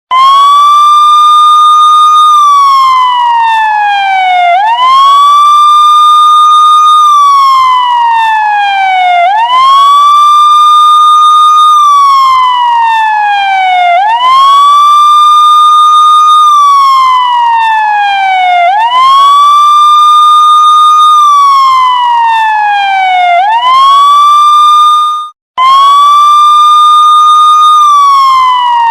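Police siren wailing in a repeating cycle: the pitch rises quickly to a high tone, holds for about two seconds, then slides slowly back down, starting over about every four and a half seconds. Near the end it cuts out for a split second and then starts again.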